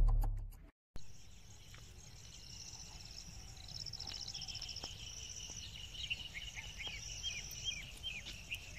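Intro music cuts off in the first second. Then a quiet field ambience follows: insects trill steadily, with short high chirps from about six seconds in.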